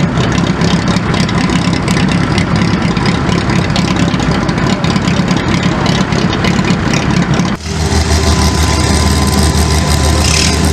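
Vintage car engines idling. The first has a fast, uneven pulse; about seven and a half seconds in, a sudden cut brings in a second engine with a deeper, steady note.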